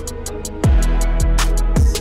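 Background electronic music with a steady beat: deep bass kicks that drop in pitch and crisp hi-hats.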